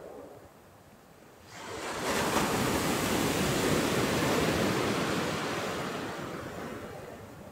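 Sea waves breaking on a pebble beach: a brief lull, then a wave comes in about a second and a half in, surges, and slowly fades away near the end.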